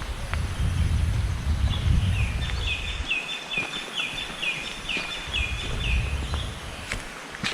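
A bird singing a phrase of about ten quick, repeated swooping whistled notes, about two a second, starting about two seconds in and ending near the end. A low rumble runs underneath and drops out for about a second in the middle.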